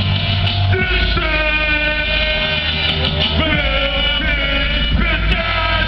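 Hip hop track playing loud through a concert PA system. A steady heavy bass sits under a melodic line of long held notes that change every second or two.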